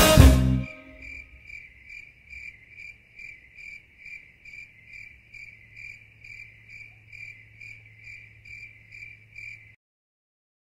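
Outro music ends in the first second. Then a cricket chirps steadily at about two chirps a second over a faint low hum, and the sound cuts off suddenly near the end.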